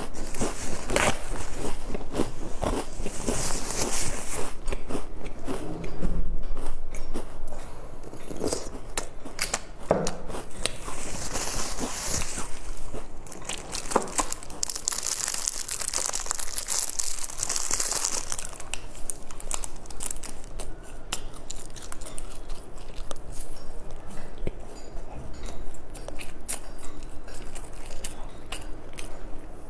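Close-up eating sounds: crunchy bites and chewing of crisp snacks and flaky pastry, many sharp crackles, with a few bursts of crinkling.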